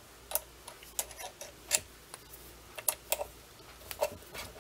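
Irregular small metallic clicks and taps as the Cowells 90ME lathe's chuck and the freshly faced workpiece are handled, with the lathe stopped.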